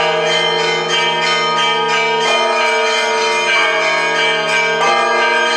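Orthodox church bells ringing a festive peal: several bells struck in quick succession, a few strokes a second, their tones ringing on and overlapping.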